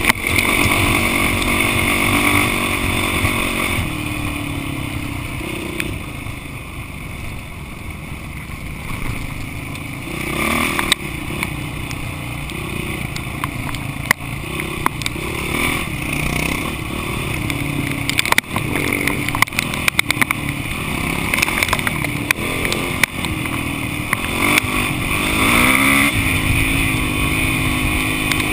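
Off-road motorcycle engine running under load, its pitch rising and falling again and again as the throttle is worked, with frequent short knocks and clatter from riding over rough ground.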